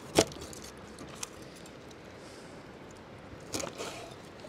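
Large kitchen knife chopping through a fish's head and striking a wooden cutting board: one sharp knock just after the start, a small tick about a second in, and a few lighter knocks near the end, over a faint steady background.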